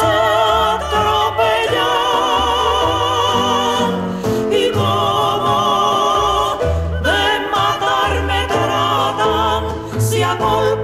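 A woman singing a slow Cuban trova song, holding long notes with a wide vibrato and pausing briefly between phrases, over a low instrumental accompaniment.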